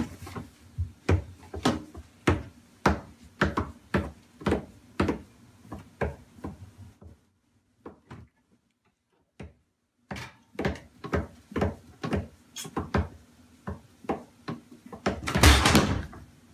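Repeated wooden knocks and thunks from a toddler moving around inside a kitchen cabinet among pots and pan lids, about two a second. They pause for a few seconds partway through, then resume, ending in a louder, longer clatter near the end.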